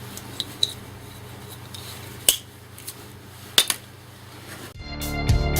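A few sharp clicks and taps of small tools and stripboard being handled on a workbench, over a low steady hum; background music with plucked strings starts near the end.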